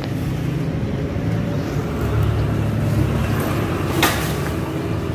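Small pickup truck's engine running steadily at idle, with a brief clack about four seconds in.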